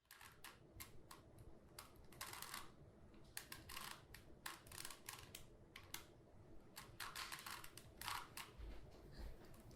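Faint, irregular clicking and clacking of a Rubik's Cube being twisted by hand, several turns a second, sometimes in quick runs.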